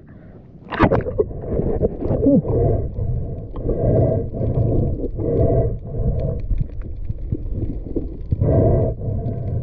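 Underwater sound picked up by an action camera as it goes below the surface: a splash about a second in, then muffled surges of water noise that come and go roughly once a second.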